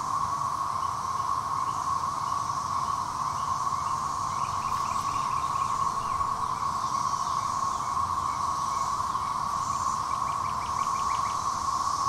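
Chorus of Brood XIX periodical cicadas (Magicicada): a steady, continuous drone pitched around 1,100 Hz, with a fainter pulsing hiss higher up. Two short runs of rapid clicks cut in briefly, about four and ten seconds in.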